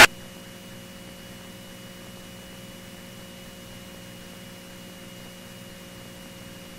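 Steady low electrical hum and hiss on the aircraft's intercom audio feed, with a faint constant high whine, once the pilots' voices cut off.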